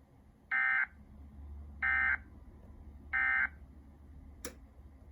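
Emergency Alert System end-of-message signal: three short bursts of SAME digital data tones (the "NNNN" code), evenly spaced about a second and a third apart, marking the end of the alert. A single sharp click follows near the end.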